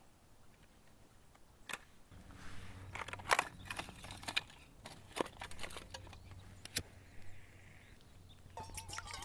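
Sharp metal clicks and clatter as a small folding pocket stove and a metal tin are opened and handled, then a short hiss and, near the end, a denser crackle as a lighter is put to the fuel in the tin.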